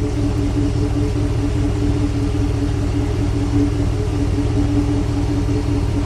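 Pontiac Grand Prix GXP's 5.3-litre LS4 V8 running steadily: a low rumble with a pulsing hum above it.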